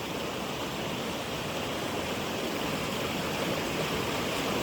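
Steady rushing noise that grows slightly louder.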